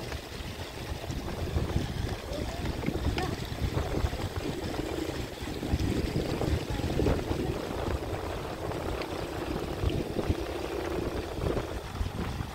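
Shallow stream running over rocks, with splashing and knocks as hands work in the water around plastic jerrycans, and low wind rumble on the microphone.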